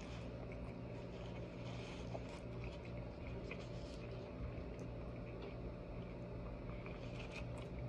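Quiet chewing of a mouthful of breakfast burrito, with faint scattered mouth clicks and soft rustles over a steady low room hum.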